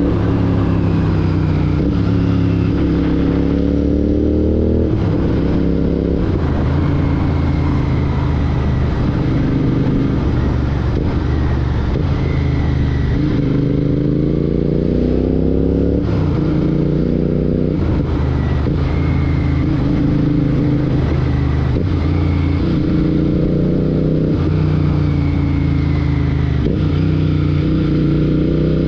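Royal Enfield Continental GT 650's 648 cc parallel-twin engine running through a Red Rooster Performance aftermarket exhaust while riding. The revs climb and then drop back several times.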